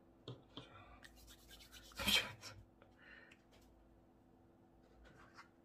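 Hands rubbing and handling soft toy cookie dough: a few short scratchy rustles, the loudest about two seconds in.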